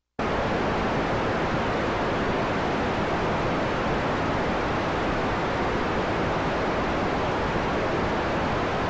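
Steady static hiss, like the noise of an untuned analog video signal. It cuts in abruptly after a split second of silence and holds at an even level.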